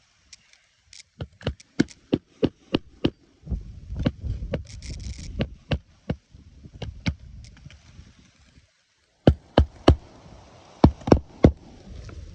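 A hammer striking roofing nails beneath asphalt shingles, in quick runs of sharp blows. A rough scraping stretch comes in the middle, and more hard blows come near the end.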